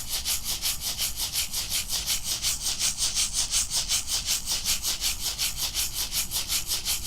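Shamanic rattle shaken in a steady, even rhythm of about five or six shakes a second, a bright hissing swish.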